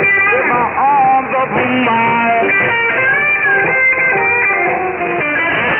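Guitar music played by the pirate station Captain Morgan Shortwave, heard through an AM shortwave receiver on 6925 kHz. It sounds thin, with nothing above the upper midrange.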